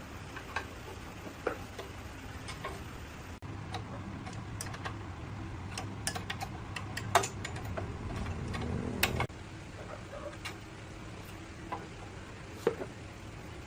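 Scattered light clicks and taps of tools and parts being handled during engine repair work. A steady low noise starts about three and a half seconds in and cuts off suddenly about nine seconds in.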